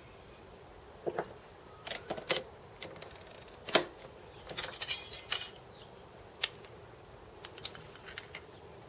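Small metal parts being handled and knocked together: a series of sharp clinks and short rattles, busiest in the first half, with a few lone ticks near the end.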